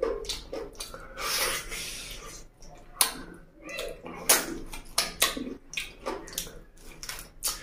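Close-miked eating sounds: fingers squishing rice into curry gravy on a plate, then lips smacking and chewing on chicken feet, with a string of sharp, wet clicks at irregular spacing.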